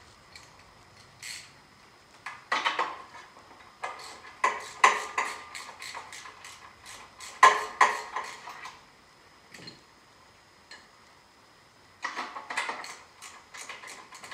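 Hand tools clicking and clinking against metal engine parts in three bursts of quick clicks, the longest in the middle, as a socket and extension work a spark plug on a Vanguard EFI V-twin engine.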